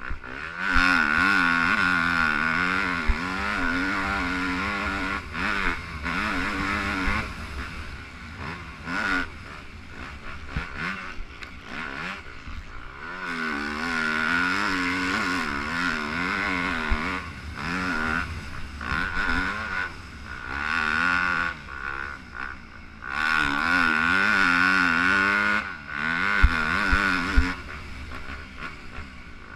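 Yamaha YZ250F four-stroke motocross engine heard on board while racing. It revs up and down in long stretches of open throttle, broken by shorter off-throttle lulls, with a few sharp knocks from the track.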